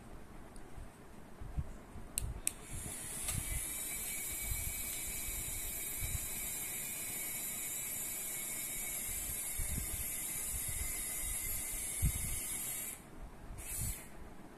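Two clicks, then the small electric motors of clip-on smart curtain robots running with a steady high-pitched whir for about ten seconds as they drive along the rod and pull the curtains open. The whir cuts off suddenly, and a brief second burst of the same whir follows near the end.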